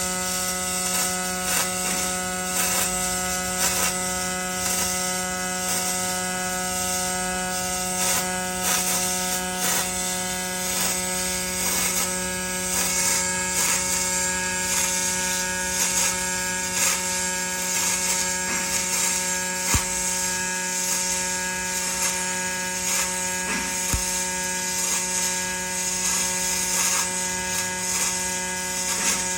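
Robotic arc welding: a steady buzz with a crackling hiss over it, dotted with irregular sharp clicks.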